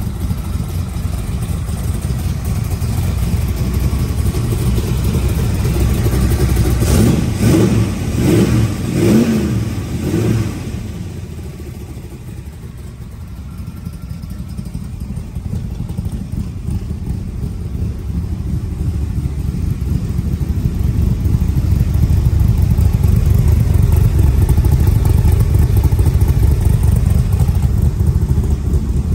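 Roush 427 V8 with ceramic-coated side pipes running just after a cold start, with a few quick revs about seven to ten seconds in, then settling to a steady idle that grows louder toward the end.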